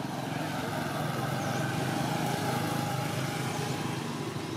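A motor vehicle's engine running steadily as it passes, growing louder toward the middle and then fading.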